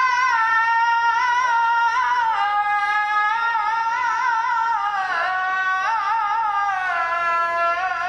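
A single voice singing a slow, ornamented melody without accompaniment, holding long wavering notes that step gradually lower in pitch.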